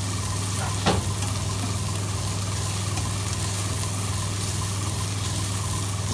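Chopped onion, cabbage and potato sizzling in oil in a non-stick frying pan while a plastic slotted spatula stirs and scrapes them, with one sharp knock of the spatula about a second in. A steady low hum runs underneath.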